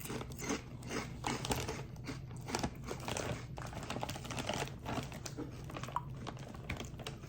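Person chewing a mouthful of Takis Kettlez Fuego kettle-cooked rolled tortilla chips: an irregular run of crisp crunches.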